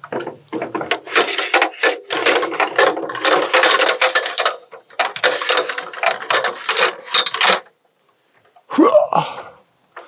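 Busy clattering and knocking of tools and gear being handled, which stops suddenly about three-quarters of the way in. A brief squeal with a bending pitch comes shortly before the end.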